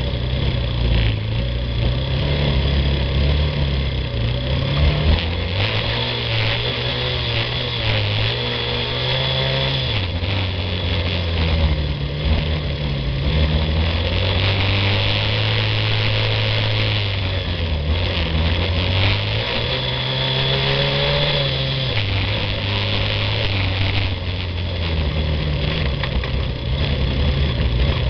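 Yamaha ATV engine running under way, its pitch rising and falling every few seconds with throttle and gear changes, over a steady rushing noise from the ride.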